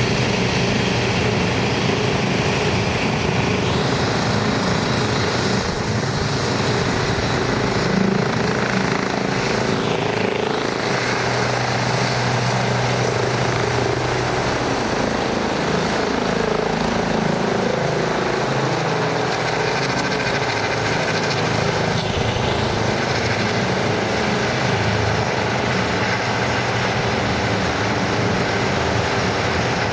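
Eurocopter EC135 rescue helicopter taking off: a steady, loud rotor and turbine noise as it lifts from the ground into a hover and then climbs away overhead.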